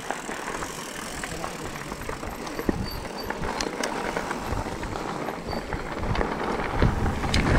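Mountain bike rolling down a gravel road: tyres running over loose gravel with scattered small clicks and rattles from the bike. Wind on the microphone builds near the end as the bike picks up speed.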